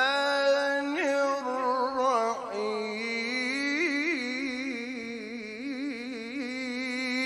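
A man's Quran recitation voice holding one long drawn-out melodic note, steady at first, then breaking into fast wavering vocal ornaments from about three seconds in.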